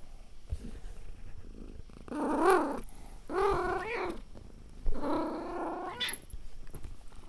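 Domestic cat giving three drawn-out meows in a row, starting about two seconds in, with purring underneath.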